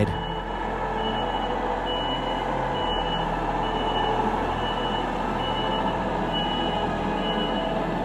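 Telehandler reversing alarm beeping in a steady series of short high beeps, about one every 0.7 seconds, over the machine's steadily running engine as it backs up.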